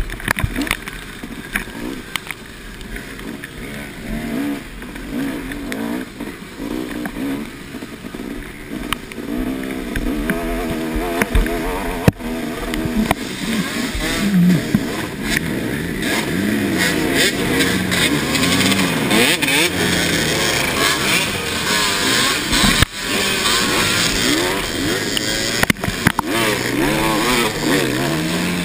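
Yamaha dirt bike engine revving up and down over and over as it is ridden hard on a muddy race trail. Sharp knocks from the bike over rough ground are mixed in, and the engine gets louder about a third of the way in.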